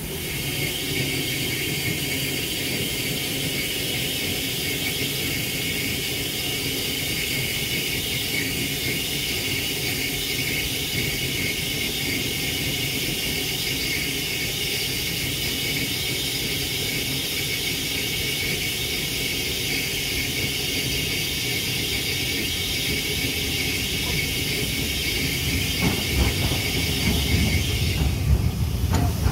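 Steam hissing steadily from a standing LMS 8F steam locomotive, with a steady high tone in the hiss. Near the end the hiss cuts off and the low rumble of a passing Schools class steam locomotive builds up.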